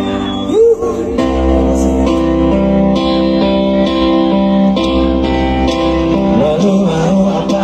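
Live rock band playing loudly: electric guitars holding sustained chords over a deep bass that comes in about a second in, with a voice gliding briefly near the start and again near the end.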